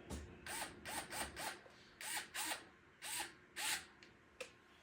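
Fanttik cordless electric screwdriver driving grill screws in short pulses: about eight brief whirs, each rising and falling in pitch. It is run gently, tapping the screws in rather than at full power so they don't strip. A single click near the end.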